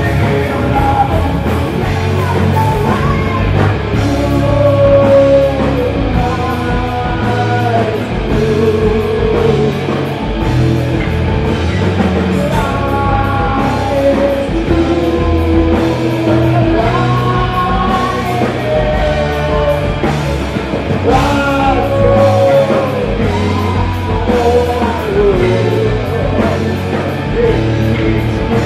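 A live rock band playing loud, with electric guitars, bass and a drum kit, and sung vocals over them.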